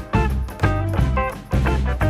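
Background music: plucked guitar over a steady bass beat, about two beats a second.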